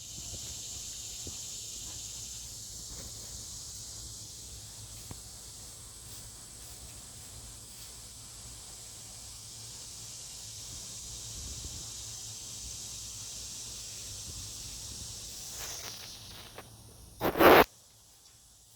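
An animal digging, scratching irregularly at the ground, over a steady high hiss. Near the end comes a loud, brief double knock.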